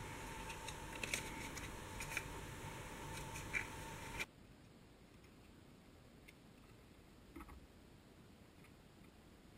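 Plastic Light My Fire sporks clicking and tapping against each other and against the fingers as they are handled, a handful of sharp ticks over a faint steady hum. About four seconds in the background drops away sharply and only an occasional faint click remains.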